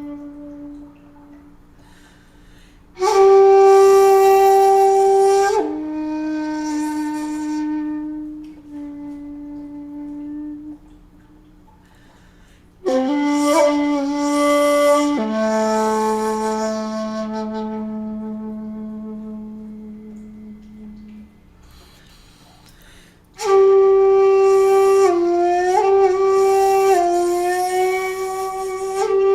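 A 2.4-shaku shakuhachi bamboo flute, made by Ichijo Kobayashi, playing long held notes. There are three phrases, each beginning with a breathy attack and fading away slowly, with small pitch bends between notes and a low held note in the middle phrase.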